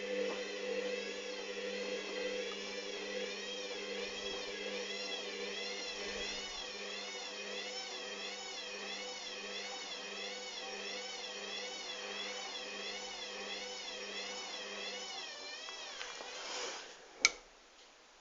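Hoover Dynamic washing machine running, its motor whine wavering up and down in pitch about once a second over a steady hum. It winds down about sixteen seconds in, followed by a single sharp click and then quiet.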